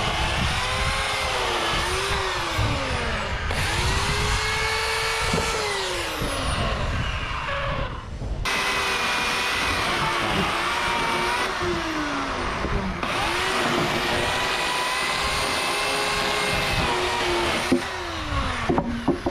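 Corded electric chainsaw cutting lengthwise into a thick wooden beam. Its motor pitch repeatedly dips and climbs back as the chain bogs down in the cut and frees up again.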